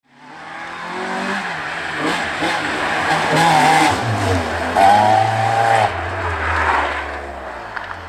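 Rally car engine revving hard as the car passes close at speed, loudest around the middle, then fading as it pulls away into a bend.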